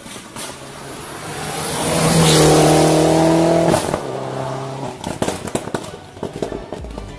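Rally car at full throttle passing close by on a hillclimb road: the engine note builds to a loud, steady high-rev howl, then drops in pitch and fades about three and a half seconds in as it goes away, followed by a series of sharp crackles.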